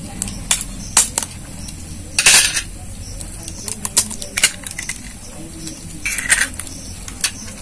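A hen's egg being cracked by hand over a stainless steel bowl: scattered sharp clicks of shell on metal and fingers, and two louder short cracks, about two seconds in and about six seconds in.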